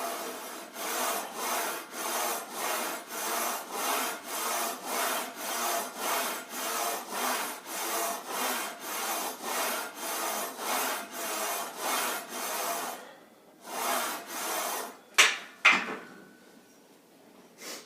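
Hard rhythmic breathing through a bench-press set, in and out about twice a second. The breathing stops, one more breath follows, and then two loud metal clanks as the barbell is racked.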